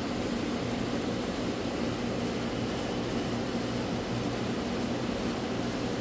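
A steady mechanical hum with a low drone, unchanging throughout.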